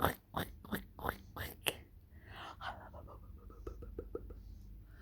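A person making odd mouth noises: a quick run of clicks and whispered puffs, about five a second, then a breathy hiss and a few fainter clicks.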